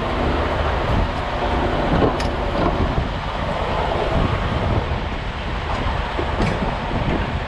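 Diesel semi truck running: a steady rumble with rattling, and two sharp clicks, one about two seconds in and one past six seconds.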